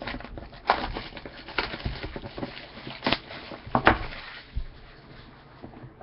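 Trading card box packaging being handled and opened: cardboard and wrapper crinkling, with several sharp clicks and taps.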